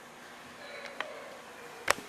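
A kitchen utensil clinking against a mixing bowl twice, a light tick about a second in and a sharper, louder clink near the end, over low room hiss.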